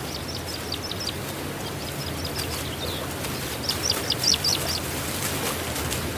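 Wild birds chirping: rapid series of short, high, falling chirps, a first flurry at the start and a louder, denser flurry about four seconds in, over a steady low hum.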